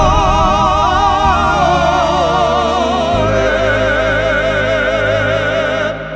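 Classical-crossover male vocal trio singing an operatic-style song in harmony with a band: a phrase that steps down in pitch, then a long held note with wide vibrato.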